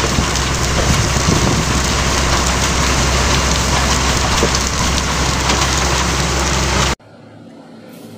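Tracked mobile rock crusher running: a steady engine drone under a dense, loud clatter of crushed stone pouring off its conveyor onto the pile. It cuts off suddenly about seven seconds in.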